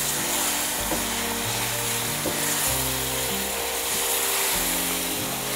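Milk sizzling as it is poured into hot ghee-roasted semolina in a pan and stirred with a wooden spoon, a steady hiss. Background music with sustained notes plays underneath.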